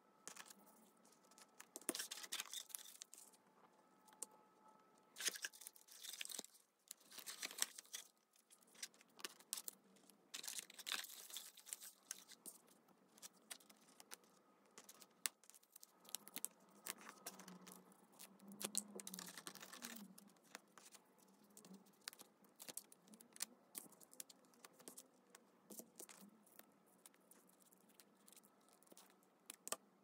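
Faint paper handling: several short spells of rustling and tearing paper, with scattered light taps and clicks in between.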